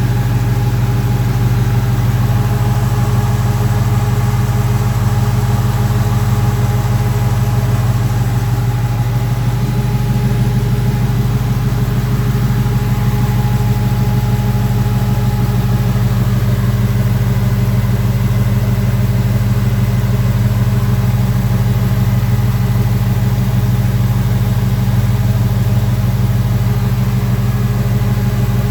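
Custom 1984 Oldsmobile Delta 88's engine idling steadily.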